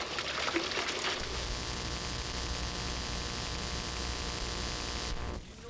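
Steady hiss and electrical hum from a blank stretch of VHS tape between recordings. It starts suddenly about a second in and cuts off near the end. Before it there is faint background with a few clicks.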